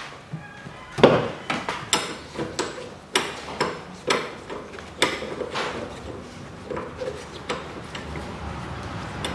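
Repeated sharp metallic clinks and taps, irregular at about one or two a second, of a ring spanner and strut tool being worked on a front strut's top-mount centre nut as it is loosened. The loudest clink comes about a second in.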